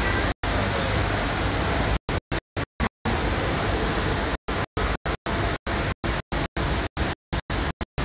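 Steady loud hiss of broad noise that keeps cutting out to dead silence. There is one brief gap near the start, then from about two seconds in it breaks up into rapid, choppy dropouts several times a second, the sign of a glitching recording.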